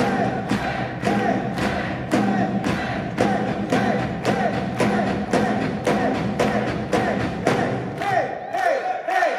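Live rock drum solo on a ddrum kit: a steady beat of drum and cymbal hits about twice a second, with shouted voices over it. The low drum sound drops out near the end.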